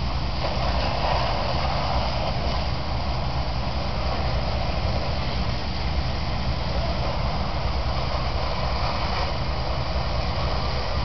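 Heavy truck diesel engine idling, a steady low rumble under a constant hiss, typical of fire apparatus standing at a fire scene.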